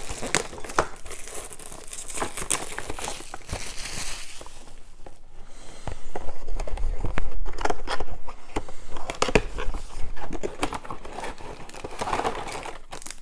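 Plastic packaging crinkling and rustling as a box of plastic miniature sprues and bases is unpacked and handled, with dull handling bumps from about six to nine seconds in.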